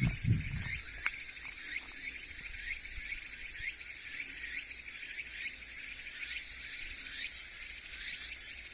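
Chorus of chirping insects, short falling chirps repeating about twice a second, with a brief low rumble at the very start that dies away within the first second.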